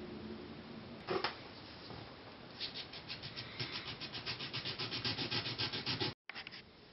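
A small needle file rasping back and forth across the edge of the LED driver's circuit board, filing it flat so that it fits the housing. The strokes come quickly and evenly, about five or six a second, and grow louder before stopping abruptly. Before the filing starts there is a single light knock about a second in.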